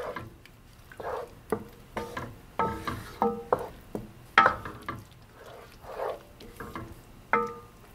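Wooden spoon stirring a thick, thickening flour-and-broth sauce in a nonstick pot, scraping the pot with each irregular stroke.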